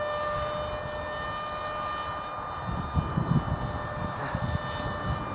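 Bixler 1 RC plane's electric pusher motor and propeller whining steadily in flight overhead. From about halfway through, low rumbling knocks, like wind or handling on the microphone, come in underneath.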